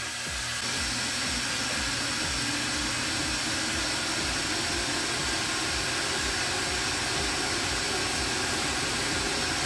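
Cooling fans of a Zbaitu S60 30 W diode laser module, its air-assist pump and the enclosure's exhaust fans running together: a steady, considerable whirring hiss with a faint high whine that comes in about half a second in.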